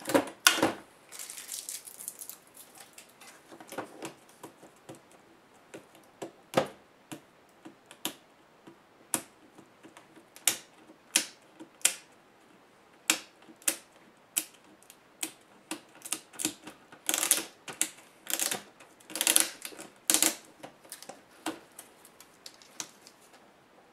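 Hands working on a bare laptop LCD panel, lifting its ribbon video cable off the back: irregular light clicks and taps of plastic and metal, with a cluster of longer scraping and rustling sounds about three-quarters of the way through.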